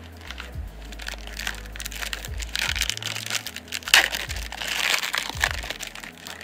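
Shiny foil wrapper of a 1994 Finish Line Racing trading-card pack crinkling and tearing as it is ripped open. The crinkling grows busiest in the middle, with one sharp crack about four seconds in.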